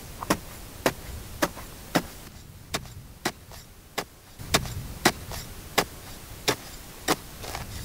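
A short-handled digging hoe chopping into dry, stony ground, about a dozen sharp strikes coming at a steady pace of roughly one every half second or so.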